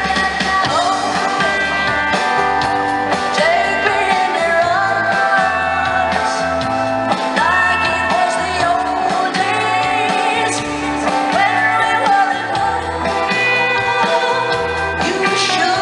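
Live pop-rock song: a woman singing lead over strummed ukulele and electric bass, amplified through a concert PA.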